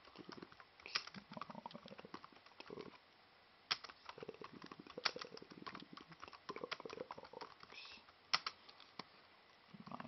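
Typing on a computer keyboard: quick runs of key clicks, with a few harder strikes standing out and two short pauses, about three seconds in and near the end.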